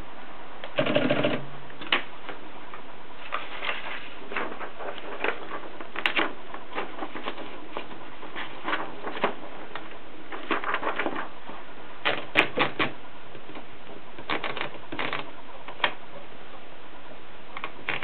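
Olympia SM2 portable typewriter being worked by hand as paper is fed in: sharp single clicks and short runs of rapid ratchet clicks from the carriage and platen, with a heavier clatter about a second in.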